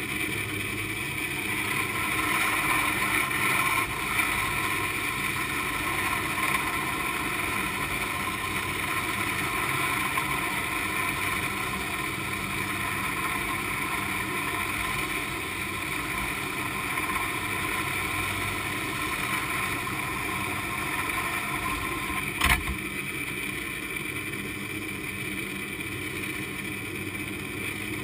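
San Francisco cable car haul cable running over a large sheave in the underground vault: a steady mechanical whir with several held tones. A single sharp clank about three-quarters of the way through.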